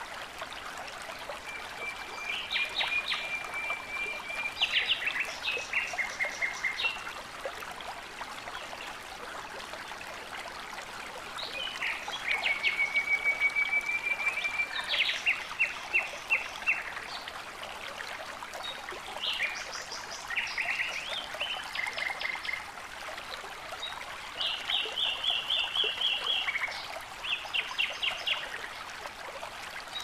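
Shallow rocky stream rushing steadily over boulders, with a bird singing over it in four bouts. Each bout is a long, rapid trill followed by a run of quick, sharp notes.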